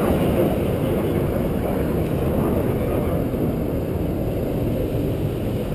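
Wind buffeting an action camera's microphone: a steady, low, fluttering rumble.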